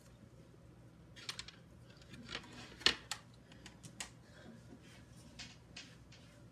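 Handling noise: scattered light clicks, taps and rustles of small objects and a tray being picked up and moved, with one sharp click about three seconds in.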